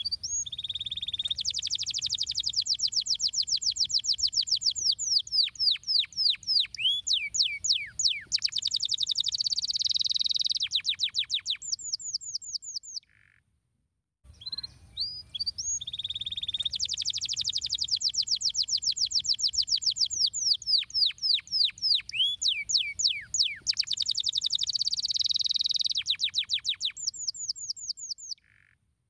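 Domestic canary singing: a long, high-pitched song of rapid trills and rolls made of quickly repeated notes, the same phrase of about 13 seconds sung twice with a short pause between.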